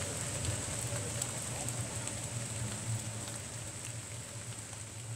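Leeds tram 399 running away along the rails, a low rumble that fades as it goes, with scattered light ticks over it.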